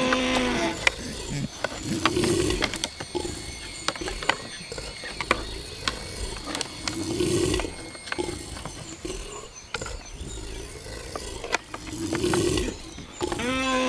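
Rutting deer stags roaring: three low, rough roars about five seconds apart, with a higher pitched call at the start and again near the end. Sharp clicks and knocks of antlers clashing run throughout.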